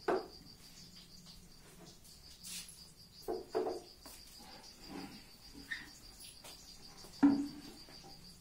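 Crickets chirring steadily in a fast, high-pitched pulsing trill. A few short, sudden sounds break in, the loudest about seven seconds in.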